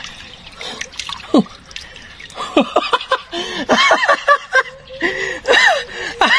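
Water splashing and dripping, then a man's excited, high-pitched laughter in short bursts from about two and a half seconds in.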